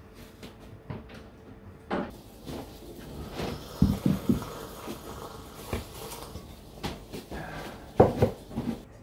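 Scattered light knocks and clunks of kitchenware and a ceramic mug being handled, with louder clusters of knocks about four seconds in and again near the end.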